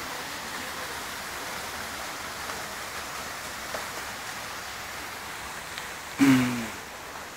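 Waterfall water rushing steadily, with a short loud low-pitched sound about six seconds in.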